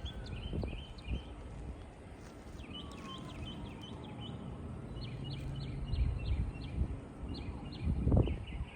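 Small birds chirping in quick repeated series over a low rumble of wind or handling noise, with a louder low rustle about eight seconds in.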